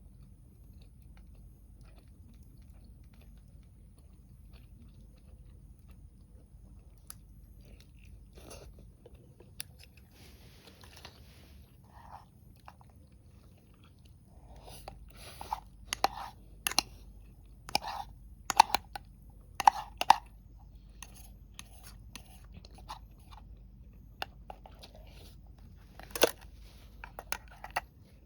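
Someone biting and chewing crunchy food, with a run of sharp crunches about halfway through and another near the end.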